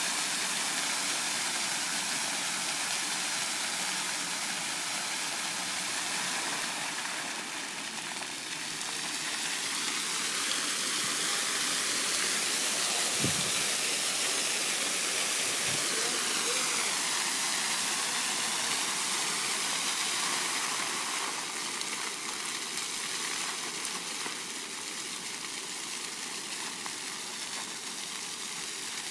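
Water jets of a dancing fountain spraying and splashing back into the basin: a steady rushing hiss that swells louder about halfway through and eases again near the end.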